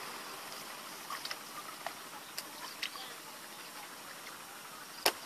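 Faint scattered squelches and small splashes of hands groping through shallow mud and water, with one sharp click about five seconds in.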